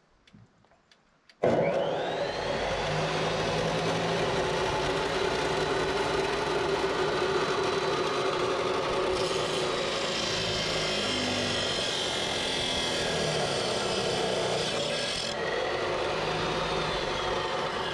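Ridgid abrasive chop saw with a metal-cutting wheel switched on about a second and a half in, its motor winding up to speed with a rising whine. It then runs loud and steady while the wheel grinds through steel rebar, harsher and brighter in the middle of the cut.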